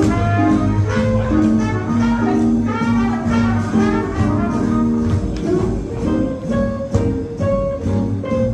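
Jazz dance tune with brass instruments playing a melody over a steady swinging beat.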